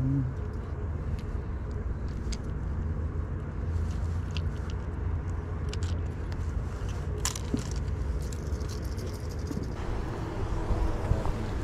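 Steady low rumble with a few light clicks and ticks scattered through it.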